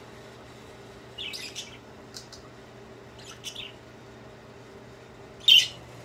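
Budgerigar calling with a few short, high chirps spaced a second or two apart, the loudest near the end.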